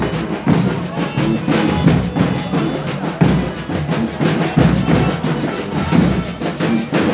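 Folia de Reis band playing a steady rhythm on hand-beaten and stick-beaten drums with a maraca shaking quick ticks, over held accordion notes.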